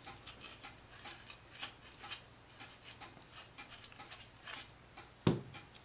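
Faint small clicks and scraping of pliers gripping and twisting the metal tip cap off a plastic cigarette-lighter plug, with one sharper click about five seconds in.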